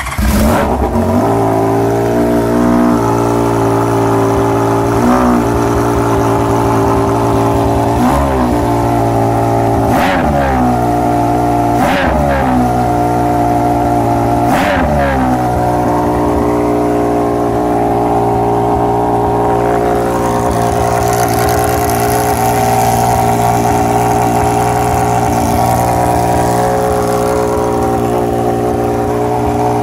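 Honda CBX 1000's air-cooled inline-six running through an aftermarket titanium exhaust, blipped sharply several times, each rev rising and falling quickly, then settling into a steady idle for the second half.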